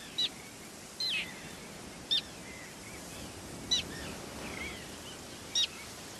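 Common terns calling: five sharp, short, high calls at uneven gaps of one to two seconds, with fainter chirps between them, over a steady background hiss.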